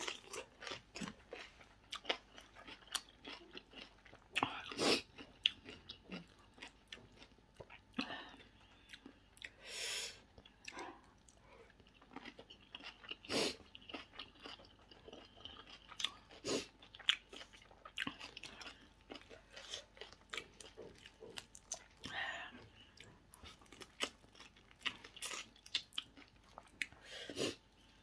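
Close-miked chewing of a crunchy shredded carrot and papaya salad: irregular crunches and wet mouth clicks, with a few louder bites.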